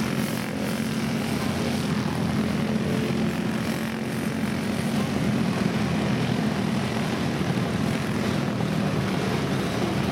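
A pack of racing karts with Briggs & Stratton Animal single-cylinder four-stroke engines running at speed, a steady buzzing drone of several engines together.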